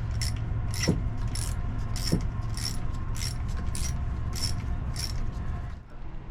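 Light metallic clicks at an even pace, about one and a half a second, over a steady low hum that cuts off near the end.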